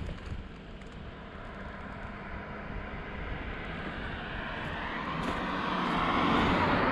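A car driving past on the road. Its tyre and engine noise swells steadily and peaks near the end.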